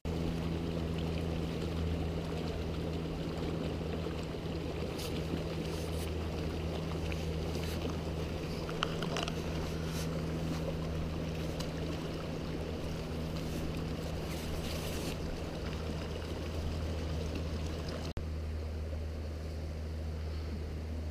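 Steady low rushing of the river flowing between snow-covered rocks below the bridge, with a constant low hum under it.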